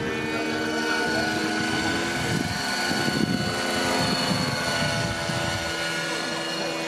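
Radio-controlled model helicopter flying past, its motor and rotors giving a steady whine of several held tones that shift slightly in pitch. A low fluttering swells up in the middle as it passes close.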